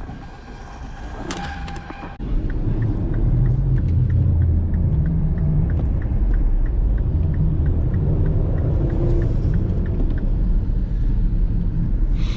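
Car cabin rumble from the idling engine, starting abruptly about two seconds in, with the turn-signal indicator clicking about twice a second.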